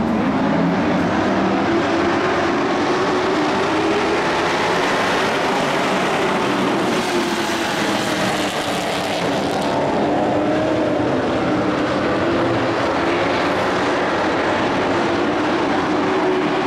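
A pack of dirt-track race trucks racing, several engines running at once with overlapping notes that rise and fall as they go through the turns.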